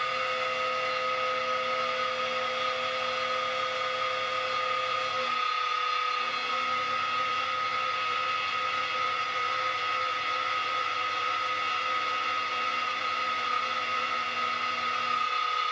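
Bench-top milling machine running, its spindle motor giving a steady whine while an end mill cuts into a round metal workpiece to widen a slot, the table fed by hand.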